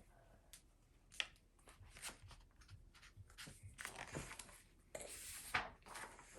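Paper pages of a picture book being handled and turned: faint rustling with small irregular clicks, and a couple of brief louder swishes.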